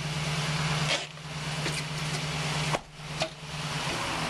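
Ford E150 van's engine idling with a steady low hum, and the van's driver's door slammed shut a little under three seconds in, with smaller knocks about a second in and just after the slam.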